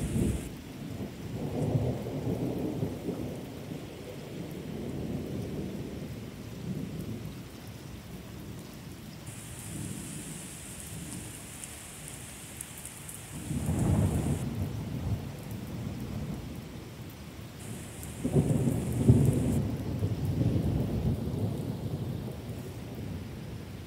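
Steady rain falling on pavement and lawn, with thunder rumbling in low swells: a short rumble near the start, a stronger one about halfway through, and a longer roll a few seconds after that.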